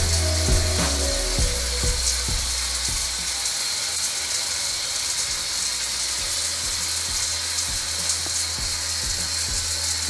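Shower head running: a steady hiss of spraying water.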